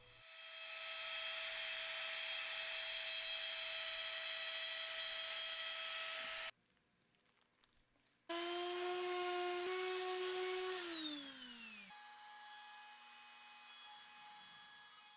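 Plunge router running with a steady high whine as a 3/16-inch core box bit routes lettering into walnut. After a short gap, a power tool motor runs with a steady tone, then is switched off and winds down, its pitch falling. Near the end a router table's motor runs more quietly.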